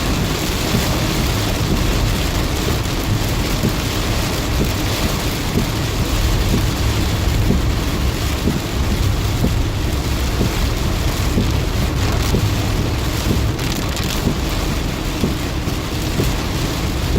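Heavy tropical-storm rain falling steadily on a moving car, heard from inside the cabin, with the low rumble of the car and its tyres on the wet road underneath.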